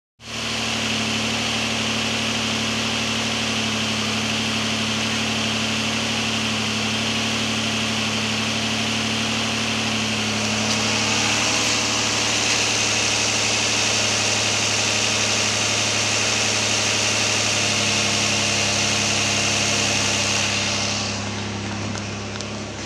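2011 Nissan Murano's 3.5-litre V6 petrol engine idling steadily in its open engine bay, a little fainter near the end.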